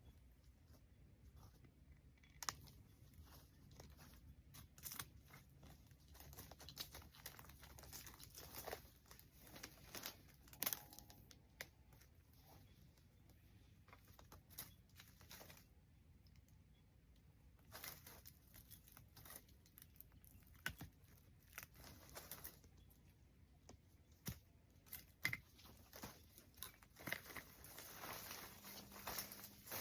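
Faint, irregular clicks and crinkling rustles, scattered throughout with a few louder snaps, like objects or plastic being handled.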